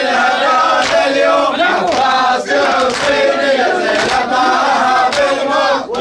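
Large crowd of men chanting a Shia mourning refrain for al-Abbas in unison, loud and full-voiced, with sharp beats at uneven intervals.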